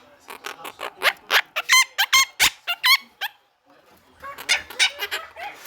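Pet parrot calling in a rapid run of short, loud squawks, several sliding up and down in pitch, with a pause of under a second about midway before it calls again.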